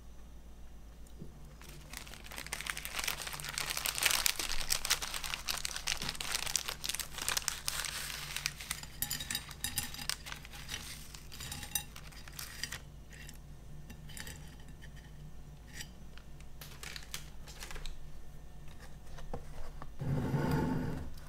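Glico foil snack bag crinkling and crackling as it is handled, densest in the first several seconds, then scattered crinkles and light clicks. A soft thump near the end.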